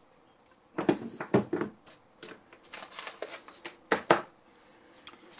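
Rustling and light knocks of objects being handled on a workbench, in a quick series of short sounds from about a second in until about four seconds in.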